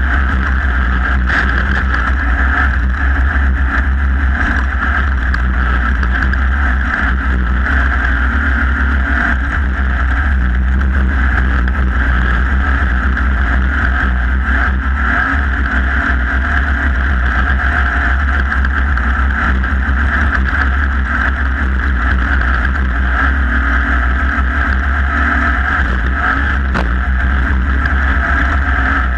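Off-road race vehicle's engine running hard at steady revs, heard from on board, with a deep rumble underneath.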